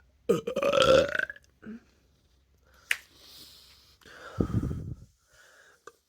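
A person burping: a long, loud, pitched burp about a third of a second in, a sharp click near the middle, then a second, lower and rougher burp about four and a half seconds in.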